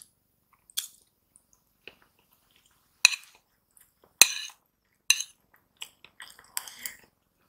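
A metal spoon clinking and scraping against a ceramic bowl while rice is scooped up: a string of short, sharp clinks, the loudest about three and four seconds in.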